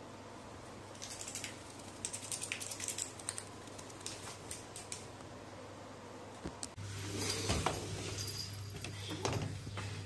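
A crow preening on its perch: light clicks and rustles of its beak working through its feathers, in scattered bursts. About seven seconds in, the sound switches abruptly to louder outdoor noise with a steady low hum and a few knocks.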